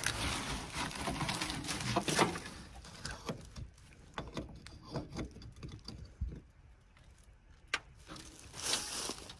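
Scattered light clicks and knocks of hands working the cap off a race car's fuel cell, with rustling handling noise in the first two seconds.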